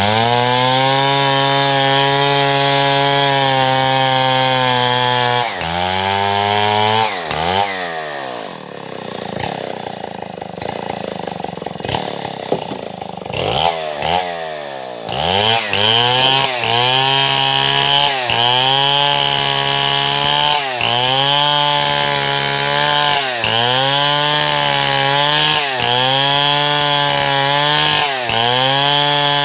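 Stihl MS070 chainsaw, a large single-cylinder two-stroke, running at high revs while cutting wood. About six seconds in it drops back to a low idle. From about halfway on, the engine pitch dips and recovers roughly every second and a half.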